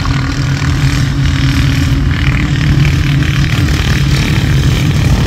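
Racing lawn mower's small engine running steadily at a low, even drone as it drives along the track.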